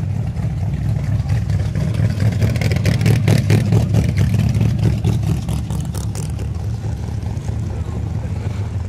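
A car engine running with a deep, steady rumble, revved up with a crackling burst from about three to six seconds in before settling back.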